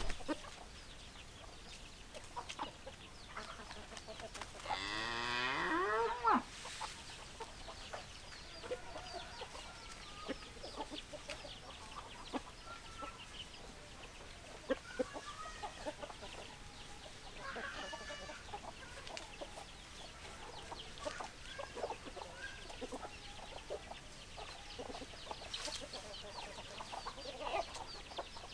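Farmyard chickens clucking, with many short calls scattered throughout. Around five seconds in, one long low call of about two seconds rises and then falls in pitch, louder than the clucking.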